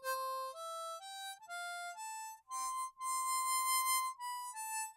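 Background music: a slow solo melody of single held notes stepping up and down in pitch, one note at a time with short breaks between them.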